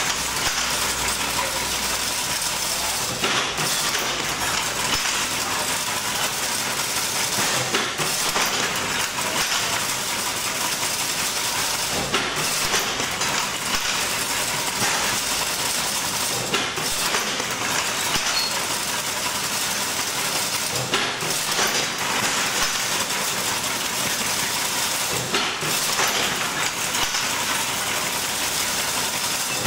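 Automatic chain-link fence weaving machine running steadily, a dense even machine noise with a recurring change in the sound about every four and a half seconds.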